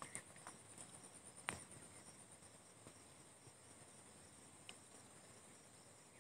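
Near silence: a few faint computer keyboard key clicks while typing, the sharpest about a second and a half in, over a faint steady high-pitched trill.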